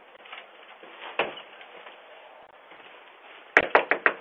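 A single sharp knock about a second in, then a quick run of four or five sharp knocks near the end, over a faint steady hiss.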